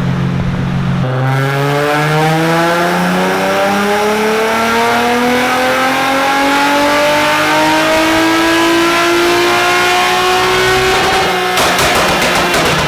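Infiniti G35's VQ35DE "Rev Up" 3.5-litre V6, breathing through headers, test pipes and a straight-pipe exhaust, making a full-throttle dyno pull. The engine note climbs steadily in pitch for about ten seconds. Near the end the throttle closes and the engine drops off into a burst of rapid exhaust crackles.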